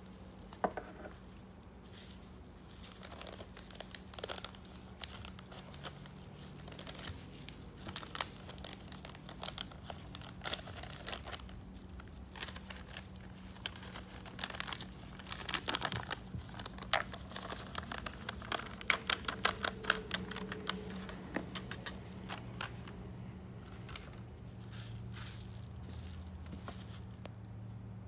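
Plastic packaging crinkling and tearing as a muffin-mix pouch is handled and torn open, with plastic food-service gloves rustling. The crackling comes in clusters and is busiest about halfway through, over a steady low hum.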